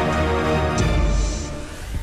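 Theme music with sustained chords, and a rising whoosh building through the second half.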